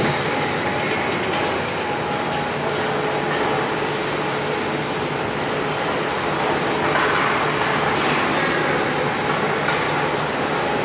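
Slaughter-line machinery running steadily, with the overhead shackle conveyor and gas flame burners going. A faint steady hum sits under the noise, and a hissing swells about seven seconds in.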